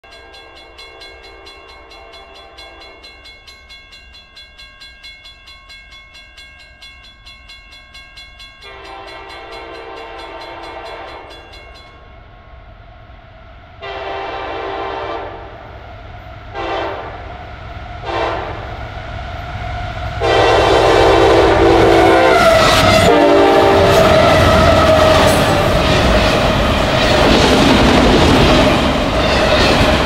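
Freight locomotive air horn sounding a varied sequence of blasts as the train approaches at about 60 mph: several long chords, two short toots, then a final long blast. From about 21 seconds in, the loud rumble and clatter of the wheels on the rails takes over as the train passes close by.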